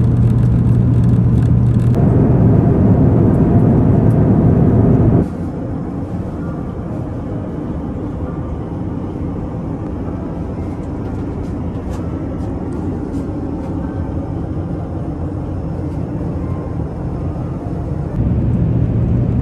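Steady cabin noise of an Airbus A350 in cruise: a loud even rush with a low hum. About five seconds in it drops suddenly to a quieter, duller rush with a few faint clicks, as heard inside the closed lavatory, and near the end the louder cabin noise with its low hum returns.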